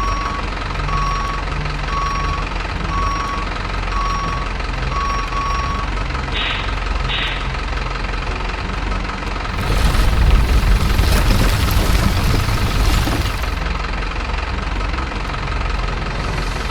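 RC miniature UD Quester truck's sound unit playing a steady diesel engine rumble, with reversing beeps about once a second for the first six seconds. Two short hisses follow, then a louder rushing noise for about four seconds near the middle.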